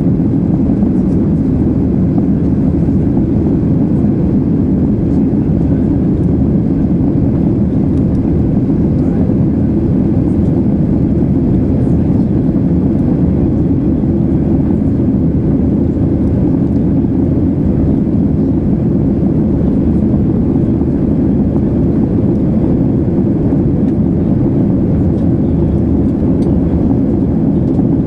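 Boeing 737 jet engines and rushing air heard from the passenger cabin: a steady low rumble during the climb after takeoff.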